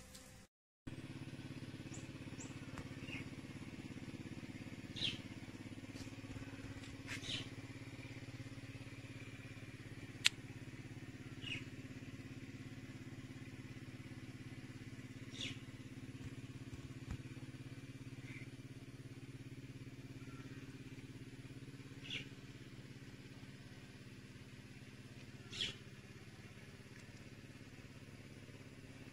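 A steady low mechanical hum, like a motor or engine running, with short high chirps every two to four seconds and one sharp click about a third of the way in.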